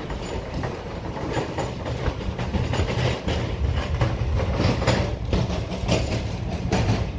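Passenger train running alongside a station platform: a steady low rumble with repeated clacks of the wheels over the rail joints.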